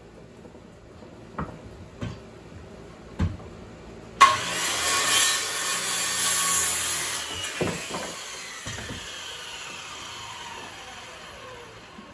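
Handheld circular saw cutting through a wooden board. After a few knocks as the wood and saw are positioned, the saw starts suddenly about four seconds in and cuts for about three seconds. The blade then spins down with a falling whine, with a few more wooden knocks as the cut-off piece is handled.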